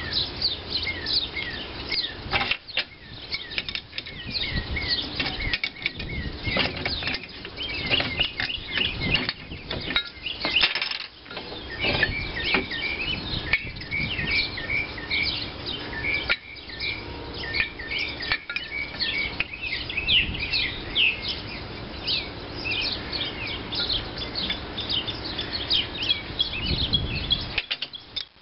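Gear puller being cranked by hand to push a crankshaft out of a cast-iron flywheel hub, with irregular metal clicks and creaks. Birds chirp throughout.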